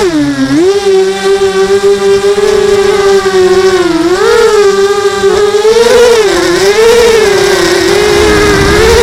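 3D-printed multirotor drone's motors and propellers giving a loud, steady whine whose pitch drops sharply near the start, then wavers up and down several times as the throttle is adjusted in flight.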